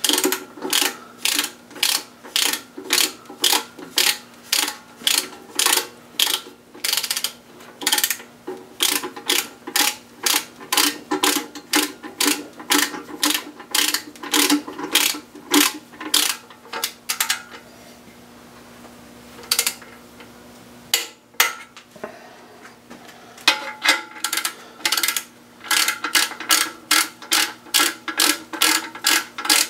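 Ratchet wrench clicking in steady runs of back-swings, about two clicks a second, as the oil pump bolts are run down and torqued. Past the middle there is a pause of a few seconds with only a couple of clicks, then a faster run of clicking.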